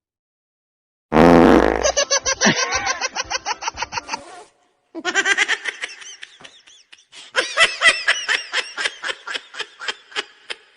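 A loud, wet fart sound about a second in, lasting about a second, followed by long runs of laughter in quick repeated bursts.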